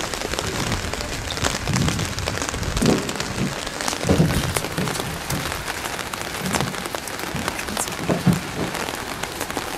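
Steady rain falling, with many separate drops ticking sharply close by.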